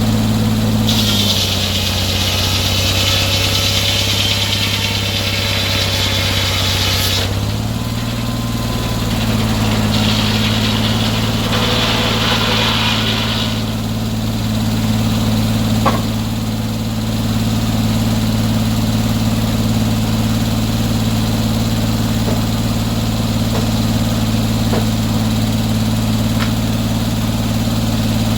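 Sawmill's engine running steadily. About a second in it drops lower in pitch under load for about six seconds while a high hiss of the saw cutting through wood rides above it, then it picks back up. A second, shorter stretch of hiss follows and there is a single click a few seconds later.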